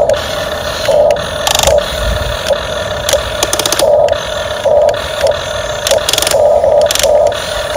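Radio-controlled excavator's electric motors whining in short, irregular bursts as its arm and bucket are worked, with light mechanical clicking between them.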